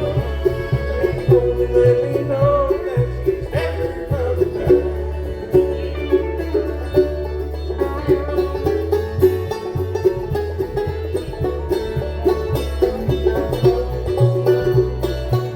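Live bluegrass band playing an instrumental passage led by rapid banjo picking over guitar and upright bass.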